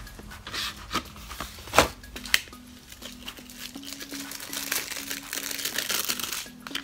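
Clear plastic memory-card packaging being handled and pried open: a few sharp plastic clicks in the first couple of seconds, then about two seconds of continuous crinkling.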